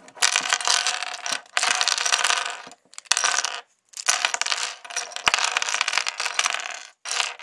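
Plastic pieces of a V-Cube 5 (5x5) puzzle clicking and clattering onto a table as its layers are turned and the cube falls apart. The clatter comes in several bursts with brief pauses between them.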